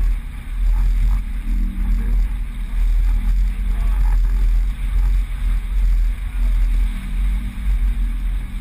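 Wind buffeting the microphone on a sailboat under way: a heavy, uneven low rumble that swells and dips, over water rushing past the hull.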